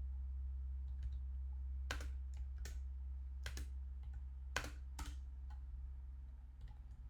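Computer keyboard keys pressed in scattered, irregular strokes, with a few clearer clacks in the middle, over a steady low hum.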